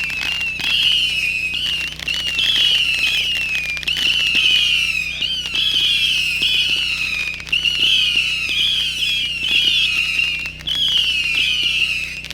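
Fireworks finale: many whistling fireworks going off at once, a dense run of overlapping shrill whistles that waver up and down in pitch, with scattered pops and crackles.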